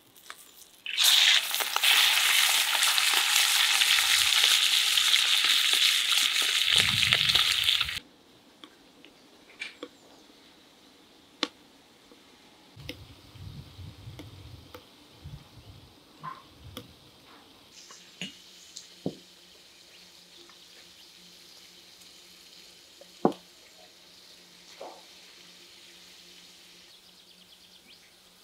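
Slices of beef tongue frying in hot fat in a wide steel pan: a loud, steady sizzle that starts about a second in and cuts off abruptly around eight seconds. After that only faint scattered clicks and taps.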